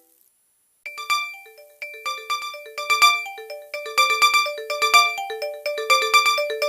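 Nokia 2600 ringtone: an electronic tune of short notes over a repeating low line, starting after a brief silence about a second in.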